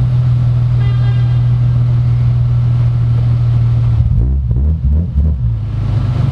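BMW M Roadster's straight-six engine running with a steady low drone, heard from the open cabin; about four seconds in its note wavers and shifts as the engine speed changes.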